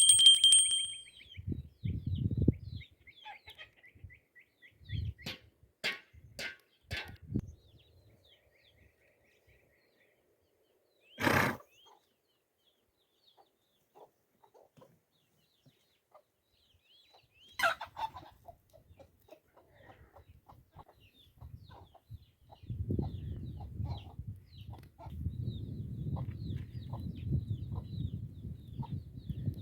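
Chickens clucking now and then among scattered knocks and clatter. A loud short thump comes about a third of the way in and a sharper knock a little past the middle, and a low, steady rumbling noise sets in for the last quarter.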